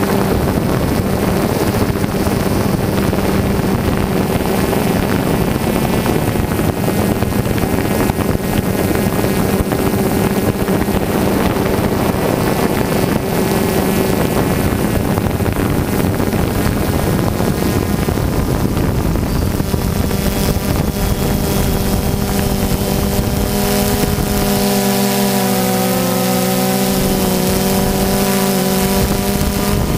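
DJI Phantom 2 quadcopter's four electric motors and propellers running in flight, a steady buzzing whine over rushing hiss, heard close up from the camera mounted on the drone. The pitch wavers up and down in the second half as the motor speeds change.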